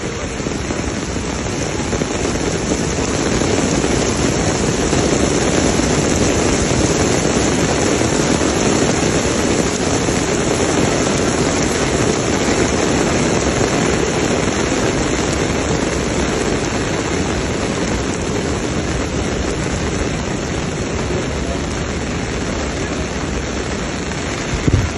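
Rain falling steadily as a dense, even hiss, with a brief low thump near the end.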